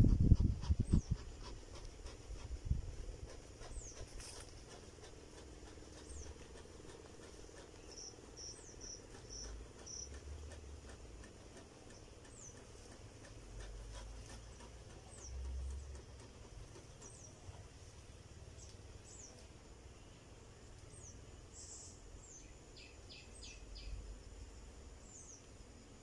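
Quiet outdoor ambience with short, high, falling chirps from small insects or birds repeating every second or two. There is a low rumble at the very start and a brief run of clicks near the end.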